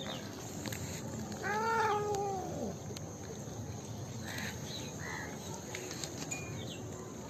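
A cat meows once, a single drawn-out call about a second and a half in that rises and then drops away at its end. A couple of short chirps follow near the middle over steady outdoor background noise.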